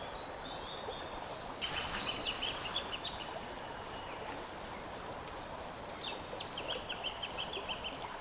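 Stream water running steadily, with a bird giving two runs of quick high chirps, about two seconds in and again about six seconds in.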